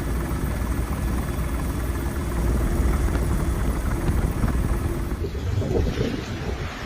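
Helicopter rotor and engine noise, a steady low rumble with a held hum. The high hiss thins out about five seconds in.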